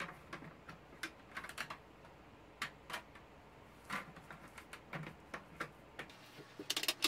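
Light, irregular clicks and taps of 3D-printed plastic parts knocking together as a printed base is pressed and shifted into place inside a printed lampshade, with a quick flurry of louder clicks near the end.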